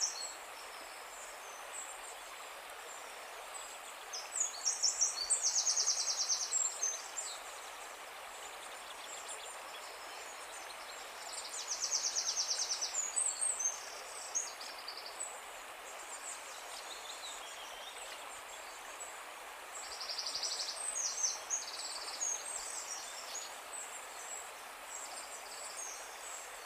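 Small songbirds singing high chirps and rapid trills over a steady background hiss, with three louder runs of song: about four, twelve and twenty seconds in.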